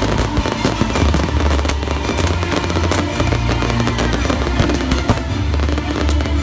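Strings of firecrackers crackling in a dense, rapid run of bangs, with music playing underneath.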